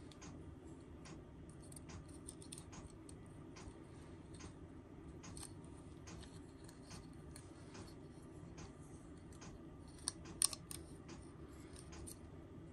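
Small plastic model-kit parts clicking and ticking faintly as they are handled and pressed together, with a couple of sharper clicks about ten seconds in.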